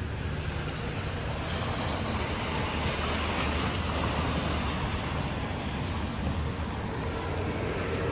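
Car passing on a wet street: tyre hiss swells about three seconds in and then fades, over a steady low rumble of city traffic.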